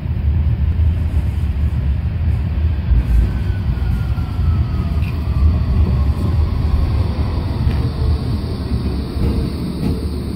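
Light-rail tram pulling into a platform stop and slowing down, a steady low rumble with a whine that falls slowly in pitch as it brakes.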